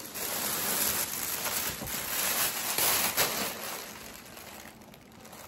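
Rustling and crinkling of packaging being handled, loudest for the first three seconds or so and then fading away.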